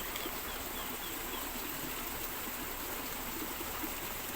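Steady rush of flowing stream water, with a few faint high chirps in the first second.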